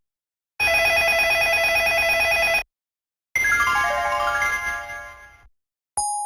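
Samsung SGH-T100 ringtones rendered on MCP-MA7. A bright electronic ring with a rapid, even trill plays for about two seconds and cuts off; after a short gap comes a quick run of notes stepping downward that fades away, and a new tone starts near the end.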